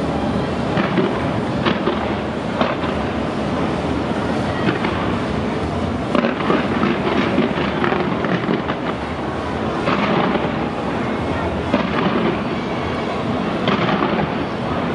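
New Year fireworks fired from a skyscraper: a dense, continuous crackling rumble broken by sharper bangs every second or two.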